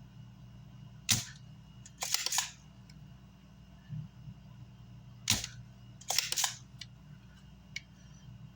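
Sharp clicks, each followed about a second later by a short burst of clatter, twice, from handling things on a workbench. A steady electrical hum runs underneath.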